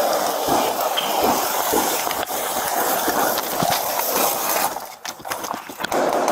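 Heavy rustling and scraping of clothing and gear rubbing on a body-worn camera's microphone as an officer drags a wounded colleague, with a few low thumps. It cuts off sharply about three-quarters of the way through.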